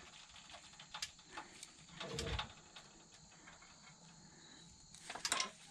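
Crickets trilling steadily in the background. About two seconds in comes a brief low creak or thump from the floor jack as it lets the rear axle down.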